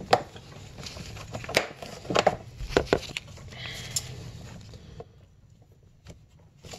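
Handling noise at close range: a few sharp clicks and knocks, about five in the first four seconds, over a low steady hum, then quieter near the end.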